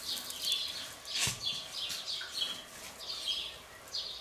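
Small birds chirping over and over in short high calls, with one sharp knock about a second in as the ceramic lid of the mini kamado grill is shut.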